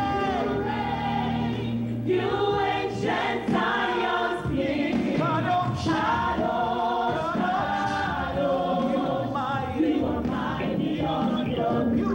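A gospel choir singing a worship chorus, many voices together without a break.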